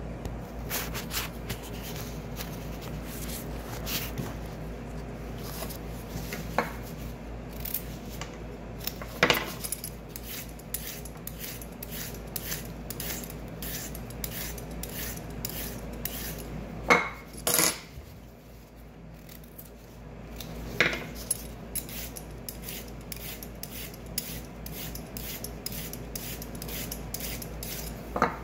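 Vegetable peeler scraping along raw carrots in many short repeated strokes, with a few sharper knocks in between. A steady low hum runs underneath.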